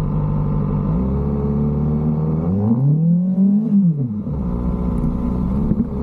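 Motorcycle engine running under way; the revs step up about a second in, then sweep up and fall back between about two and a half and four seconds in as the bike accelerates to overtake a pickup truck, before settling to a steady pitch.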